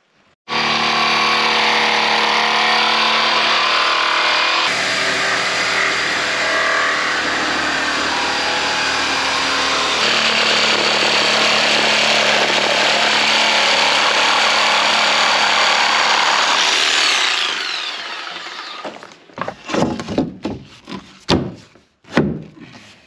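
Ryobi jigsaw cutting a wooden ceiling board, its motor running steadily and loudly, then winding down about 17 seconds in. A few short knocks and handling sounds follow near the end.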